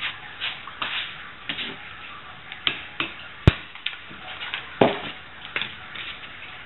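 A hammer tapping a large socket held over a valve spring retainer on a Honda 50 cylinder head, compressing the spring so the valve keepers pop loose. It is a string of sharp knocks, the two hardest about three and a half and five seconds in.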